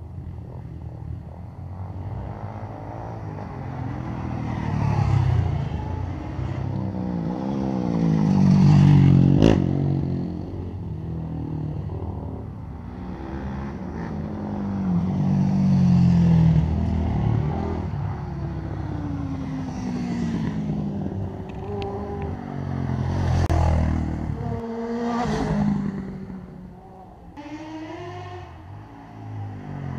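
Several quad bikes racing round an oval track, their engines swelling and fading with pitch sweeping up and down as each one passes close by, again and again.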